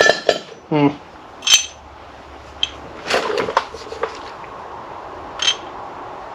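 Scattered metallic clinks and knocks of hand tools and metal parts being handled while working on an engine's mounts. There are about half a dozen separate hits, two of which ring briefly, and a quick cluster of clatter about three seconds in.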